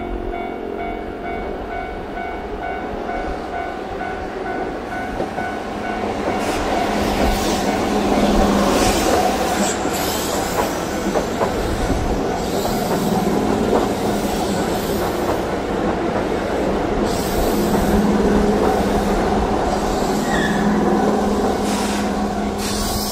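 Keihan electric train on the track at the station: the loud rush and clatter of steel wheels on the rails builds about six seconds in and carries on, after a few steady tones at the start fade away.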